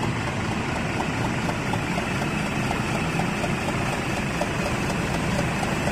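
Hino coach's rear-mounted diesel engine idling steadily, with a faint regular ticking over the low running sound.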